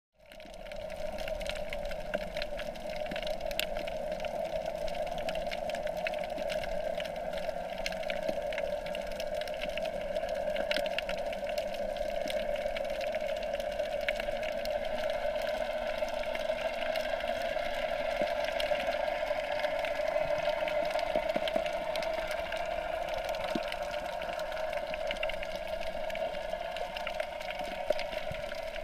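Underwater sound picked up by a GoPro camera in its waterproof housing: a steady muffled hum and rush with scattered sharp clicks, starting suddenly at the beginning.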